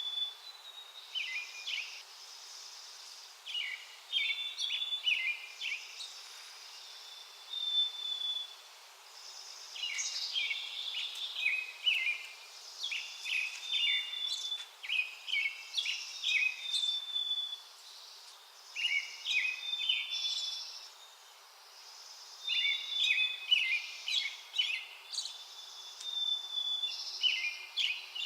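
Small songbirds chirping and calling in repeated bursts of quick high notes, over a faint steady hiss.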